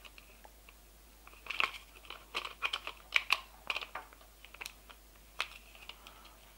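Hands handling a gel blaster's plastic pistol grip and its hinged motor door on the bottom, giving a quick run of light plastic clicks and crackles, with one more click near the end.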